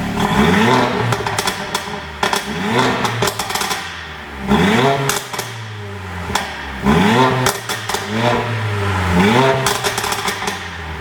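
Mercedes-AMG CLA45's turbocharged 2.0-litre four-cylinder engine revved about five times, each rev rising in pitch and falling back with a string of sharp cracks and pops from the exhaust, the effect of a pop-and-bang engine tune.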